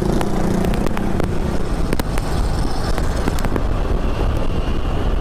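Steady wind rush on the microphone and road noise while riding an electric scooter at speed through city traffic, with a few sharp clicks; the motor itself is barely heard.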